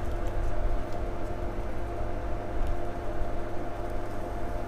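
Steady low buzzing hum with a faint steady tone over it: a phone's vibration motor running while its board is powered from a bench power supply during a short-circuit hunt.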